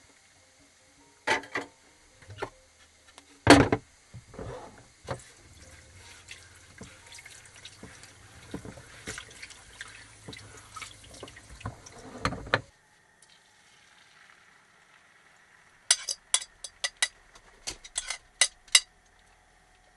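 Tap water running into a stainless steel sink while dishes are rinsed, with plastic and wooden items knocking against the sink now and then. The water cuts off abruptly about two-thirds of the way through. Near the end comes a quick series of metal clinks from a utensil against a pan or plate.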